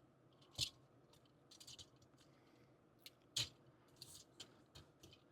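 Near silence broken by a few faint clicks of a plastic model-kit figure being handled and posed, the two clearest about half a second and three and a half seconds in.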